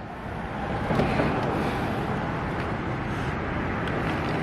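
Road traffic noise: a passing vehicle that swells about a second in and then holds steady.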